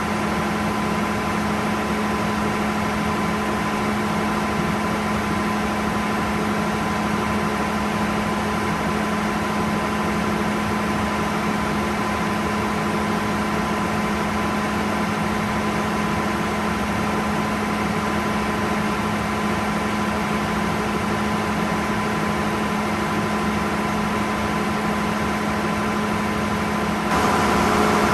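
Gardner 6LXB six-cylinder diesel engine running a generator set at a steady constant speed, with an even hum and a higher steady whine. It gets a little louder about a second before the end.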